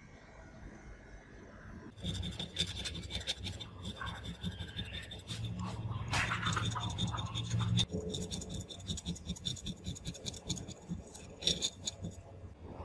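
A thin metal blade scraping old surround residue off the rim of a loudspeaker's metal frame in quick, irregular rasping strokes, starting about two seconds in. This is the cleaning stage before the speaker gets a new surround.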